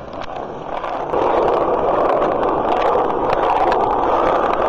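Skateboard wheels rolling over concrete: a steady rolling noise that gets louder about a second in, with a few light clicks over it.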